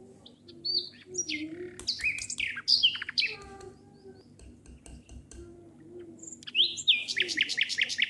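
Songbirds chirping: a cluster of quick, falling chirps in the first few seconds, then a fast run of about eight falling notes near the end.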